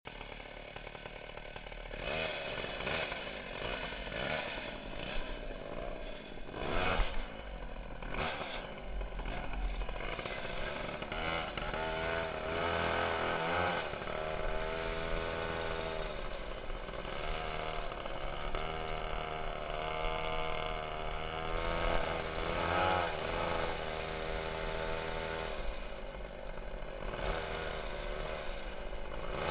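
Twin two-stroke 820 chainsaw-type engines on a vintage go-kart running at high revs, their pitch rising and falling over and over as the kart accelerates and backs off. Low wind noise buffets the onboard microphone underneath.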